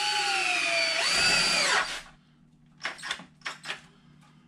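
Power drill driving a Tapcon masonry screw through a 2x4 into a concrete block. The motor whine sags in pitch as the screw bites, picks back up about a second in, and stops about two seconds in, followed by a few light knocks.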